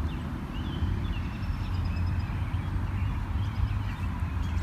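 Faint, high chirps of a small wild bird over a low, steady rumble.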